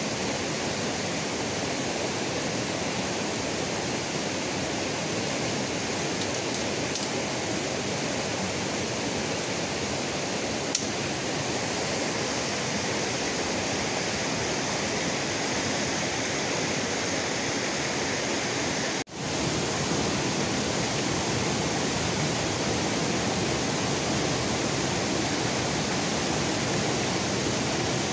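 Steady rush of flowing river water, an even hiss that drops out for an instant about nineteen seconds in.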